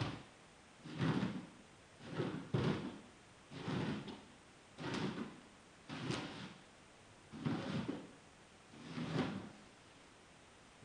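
Hairbrush pulled down through long, tangled hair in repeated strokes, about one a second, each stroke a short scraping swish.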